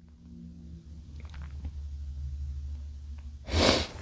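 A man sneezes once, short and sharp, about three and a half seconds in, after a few seconds of faint breathing.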